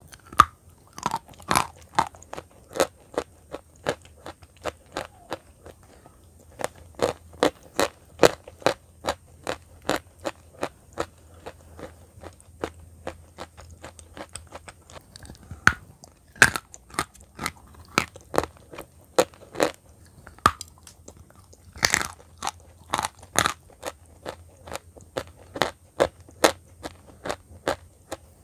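Chunks of eating chalk, dipped in a brown paste, being bitten and chewed close to the microphone: a run of sharp, crisp crunches, about two a second, with short lulls, over a faint low hum.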